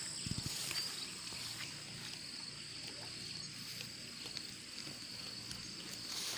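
Goat grazing in tall weeds, with scattered small rustles and tearing ticks of plants as it crops them, and a brief low thudding about a third of a second in. A steady high insect buzz runs underneath.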